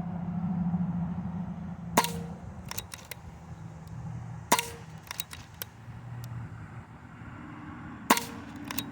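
JTS Airacuda .22 PCP air rifle fired three times, each shot a short, sharp crack, about two and a half and then three and a half seconds apart. Each shot is followed within a second by a few lighter clicks, with a steady low hum underneath.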